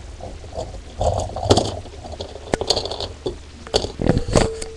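Handling noise close to the microphone: several sharp knocks and clatters at irregular times, with short stretches of rustling and scraping, as items on a desk are moved about.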